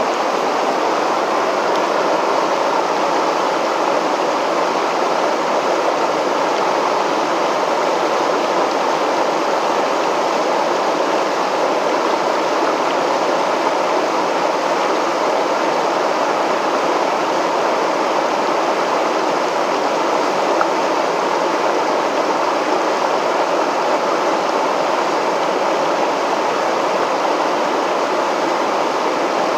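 River water pouring over a low weir: a steady, even rushing that does not change.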